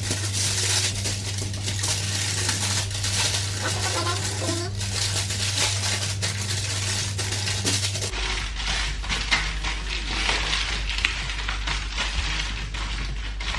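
Aluminium foil crinkling and rustling as it is handled, a dense crackle of small ticks, over a steady low hum that shifts lower about eight seconds in.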